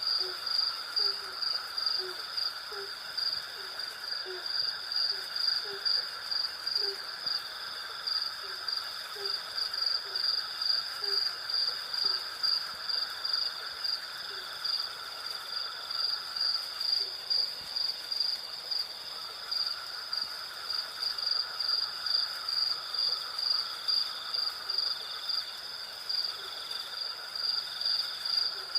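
Night insect chorus of crickets and cicadas: a steady, evenly pulsing high chirping over further continuous buzzing at lower pitches. Through roughly the first half, a run of short low notes repeats about every half second, then fades out.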